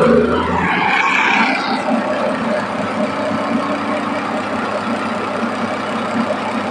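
Railway track tamping machine running steadily, its engine and hydraulics making a continuous mechanical noise.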